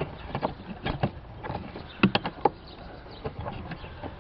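Irregular clicks, knocks and scrapes of plastic and metal parts being worked by hand around a car battery, as the battery hold-down is pried loose.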